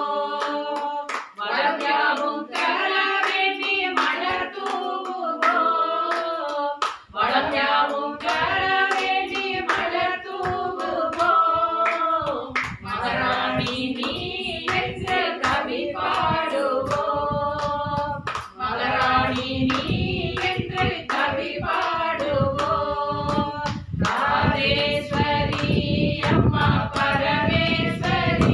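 Group of women singing a Hindu devotional bhajan together, keeping time with steady hand claps.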